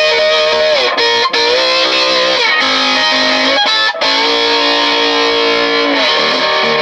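Electric guitar played with a slide: sustained notes and chords that glide up and down in pitch, with a few brief breaks between phrases. The player hears the strings going out of tune and back, with stray detuned notes.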